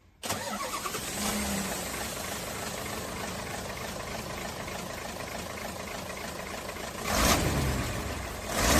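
Radio-controlled model excavator running with a steady mechanical hum that swells louder about seven seconds in and again near the end.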